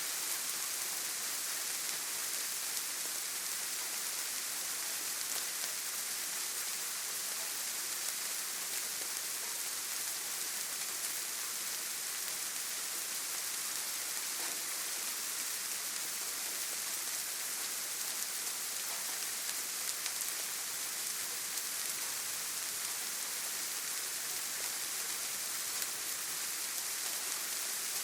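Rain falling steadily: an even hiss of drops on a surface, unchanging in strength, with most of its sound in the high range.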